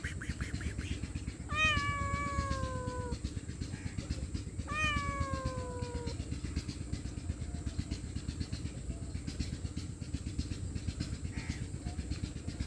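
Hungry stray cat meowing twice: two long calls, each falling slowly in pitch, over a steady low rumble.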